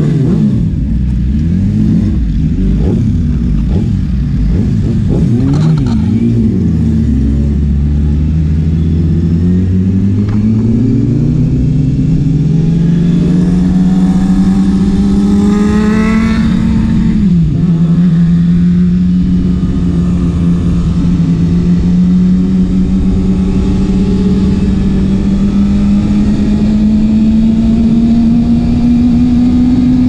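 Yamaha R6 sport bike inline-four engine revving and pulling away, with a few short revs at first. The engine note then climbs slowly and steadily, drops sharply once with a gear change about 17 seconds in, and climbs again.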